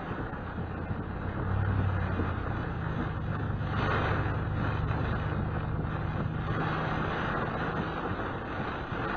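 Car interior while driving through rain: steady road and rain noise with an engine hum that comes up about a second and a half in and holds. Two swells of swishing noise come near the middle and near the end, the first as the windshield wiper sweeps the glass.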